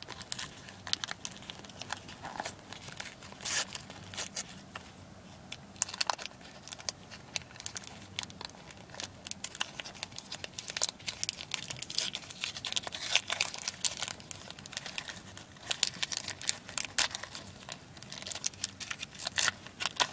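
A Pokémon sticker pack's wrapper being torn open and crinkled by hand, as an irregular run of small crackles and tears.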